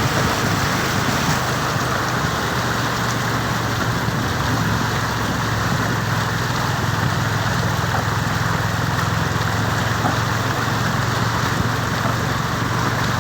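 A vehicle's engine humming steadily under an even rushing hiss.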